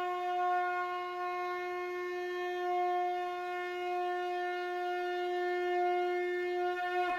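Conch shell (shankha) blown in one long, steady note, its pitch dipping slightly near the end.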